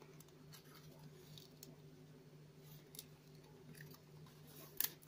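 Faint creaking and rustling of stiff card as press-out cardboard model pieces are folded and pressed together by hand, with scattered light clicks and a sharper double click near the end.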